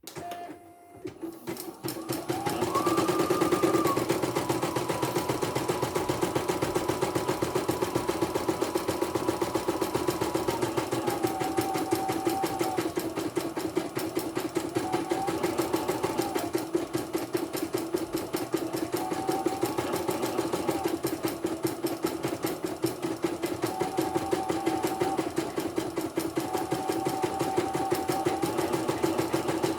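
CNY portable computerized embroidery machine stitching, on a test run after repair. A fast, steady needle rattle starts about two seconds in, with short whines that come and go.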